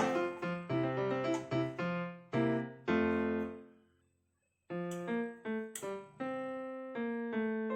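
Background piano music: a simple melody of single notes. It breaks off for about a second of silence near the middle, then starts again.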